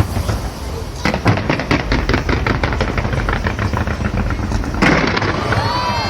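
Fireworks going off in a rapid string of sharp bangs and crackles, several a second, with a louder burst near the end.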